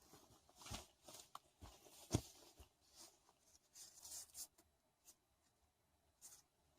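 Faint scuffs and rustles of a hiker moving over rough ground, with one sharp knock about two seconds in.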